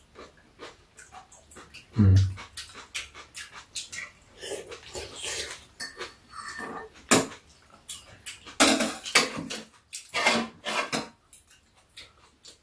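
Metal spoons and chopsticks clicking and scraping against bowls during a meal of soup and rice, with the mouth sounds of eating in between. A low thump comes about two seconds in.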